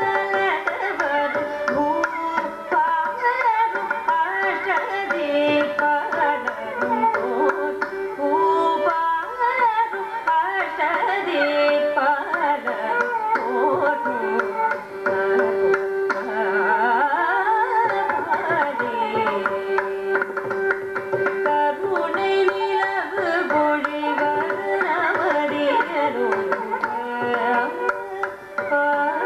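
Live Carnatic music: a woman's voice sings a devotional song with gliding ornaments and long held notes, while a violin follows the melody and a mridangam plays a steady stream of strokes.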